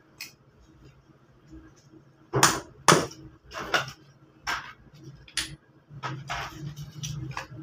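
Lumps of wood charcoal clacking and clinking against each other as they are handled in a sack: a string of sharp, separate knocks, the loudest about two and a half and three seconds in.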